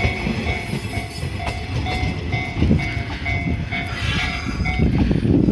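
Shinano Railway 115 series electric train rolling past, its wheels and running gear rumbling on the rails, louder near the end. A repeating electronic beeping tone, about two beeps a second, sounds over it and stops shortly before the end.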